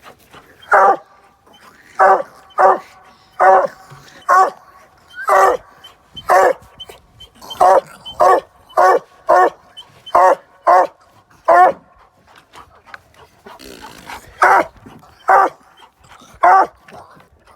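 Redbone coonhound barking in a long run of short, sharp barks, one or two a second, with a brief pause about two-thirds of the way through.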